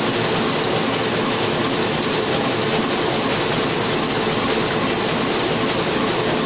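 Large-format Heidelberg offset printing press running: a loud, steady mechanical clatter that holds an even level throughout.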